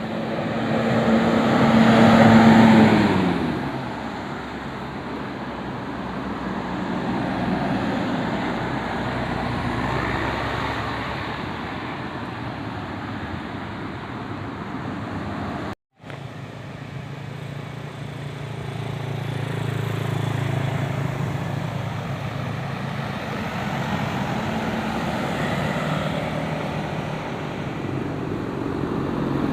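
Vehicles passing on a road. Near the start a loud vehicle goes by close, its steady drone dropping in pitch as it passes; later a lower engine drone runs under the road noise.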